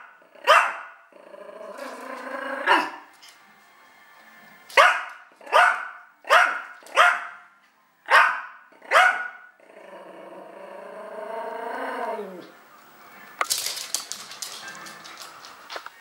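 Yorkshire terrier barking at a cat in short, sharp barks about one a second, with two long growls between the runs of barks. A flurry of sharp clicks follows near the end.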